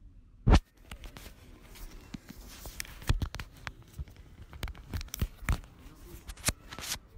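Rustling and clicking handling noise: one loud sharp click about half a second in, then scratchy rustling with many short clicks and taps.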